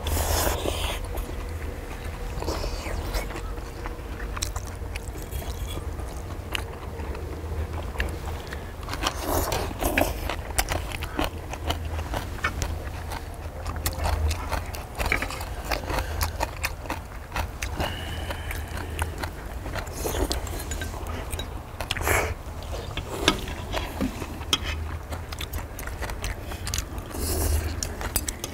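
Several people chewing and eating, with forks and knives clicking and scraping against a cast-iron pot-lid griddle, over a steady low rumble.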